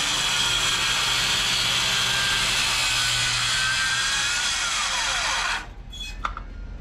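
A handheld power tool running steadily in woodworking. Near the end its whine falls in pitch as the motor winds down, then it stops.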